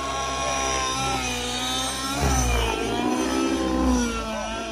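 Nitro-fuelled RC model helicopter's glow engine and rotor running in flight, the pitch rising and falling as it manoeuvres, with a surge of low rumble about two seconds in.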